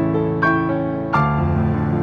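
Background music: slow, gentle piano-like melody with new notes struck about once a second over sustained chords.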